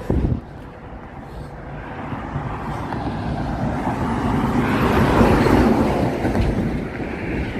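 A vehicle passing close at highway speed: a rushing tyre and engine noise swells to a peak about five seconds in, then eases off. A short, loud thump right at the start.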